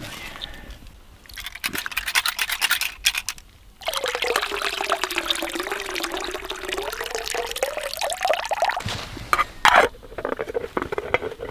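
Water poured out of a small metal pot of dandelion greens, splashing onto wet leaf litter as the greens are drained. It starts as a patter of splashes, then becomes a steady pour with a wavering tone for about five seconds, and ends with a short sharp knock near the end.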